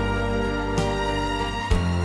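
Background music: held, mellow instrumental chords with a soft beat about once a second, changing chord near the end.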